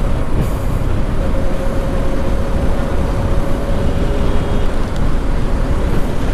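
Yamaha R15 V4's single-cylinder engine running at a steady cruising speed, a constant drone with one steady hum, under heavy wind rush and road noise on the microphone.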